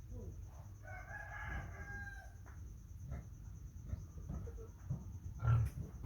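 A single long, steady, pitched animal call lasting about a second and a half, over low rumbling handling noise with small knocks and a louder thump near the end.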